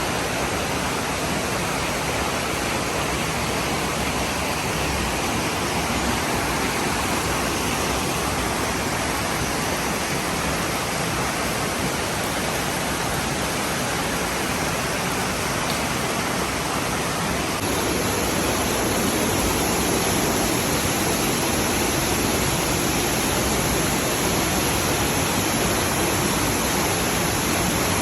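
Ueo Falls (Hario Falls) waterfall: water pouring steadily in an even, unbroken rush. The tone shifts and the sound grows a little louder about two-thirds of the way through.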